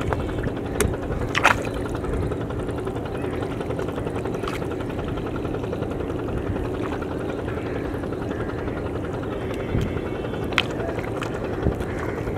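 A steady low engine drone, with a few brief sharp clicks over it.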